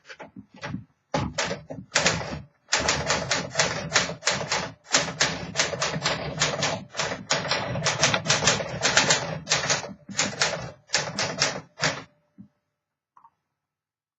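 Typing on a 1953 Smith Corona Sterling manual typewriter: a rapid, uneven run of sharp key strikes that stops suddenly about two seconds before the end, followed by a couple of faint clicks.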